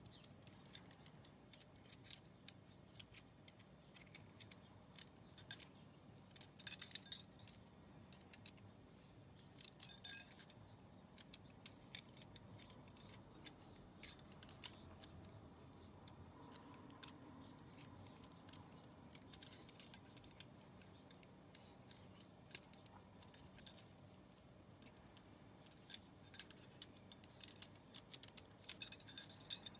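Metal ring of a Hanayama Cast Box puzzle clinking and rattling against the cast metal cube as it is turned and pushed through by hand, in scattered light clicks. The clicks bunch together about seven, ten, twenty and twenty-seven seconds in.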